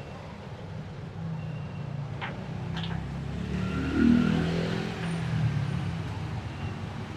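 A motor vehicle running past, its sound swelling to a peak about four seconds in and then fading, over a steady low rumble. Two short sharp clicks come shortly before the peak.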